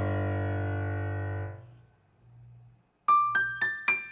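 Background piano music: a held chord fades away over the first second and a half, a short pause follows, and a run of quick, separate notes starts about three seconds in.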